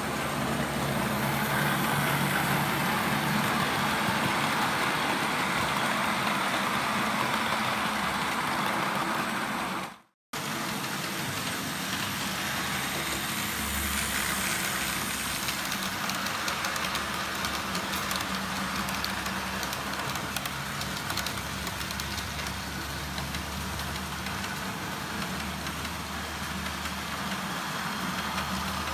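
OO-scale model diesel locomotives running along the layout's track: a steady mechanical running sound with a low hum over a hiss, cut off for a moment about ten seconds in.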